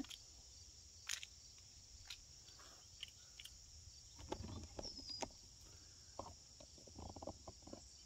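Faint steady insect chorus, with a few scattered soft clicks and taps.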